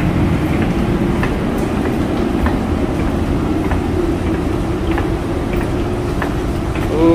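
Steady low rumble inside an airport jet bridge, with a faint hum coming and going and light footsteps ticking on the walkway floor as someone walks toward the aircraft door.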